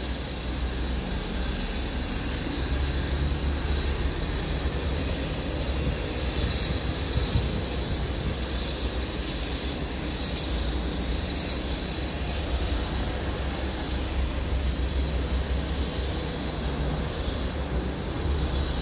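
Wind buffeting the phone's microphone: a steady low rumble that swells and eases, with an even hiss over it.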